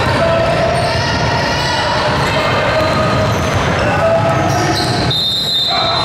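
Basketball game sounds: a ball bouncing on the court amid many short high squeaks, with a steady high tone starting about five seconds in.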